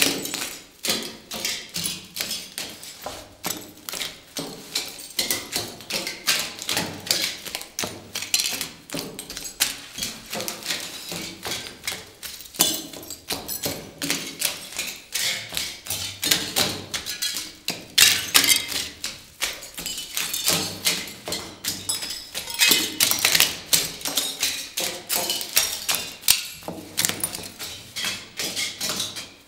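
High-heeled sandals treading on and through a floor littered with shiny strips, a dense, irregular crackling and clicking of heel taps and the strips crinkling and scraping underfoot.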